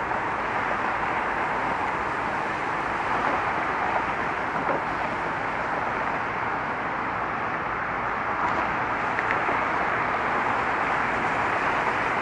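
Steady road traffic noise: a continuous hiss of cars driving along a roadway, with no single vehicle standing out.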